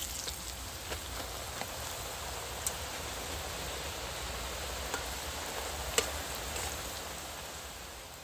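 Corn tortilla triangles deep-frying in hot oil in a steel pan: a steady sizzle with a few sharp pops, easing off near the end.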